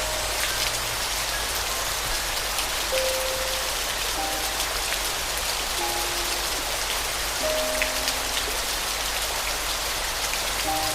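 Steady rain falling, a dense hiss with small drop ticks, under sparse, slow soft piano notes.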